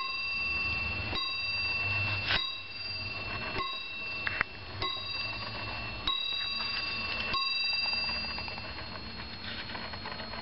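Warmink Sallander wall clock striking the hour on its bell: six even strokes a little over a second apart, each ringing on into the next. The last stroke rings away over the final seconds.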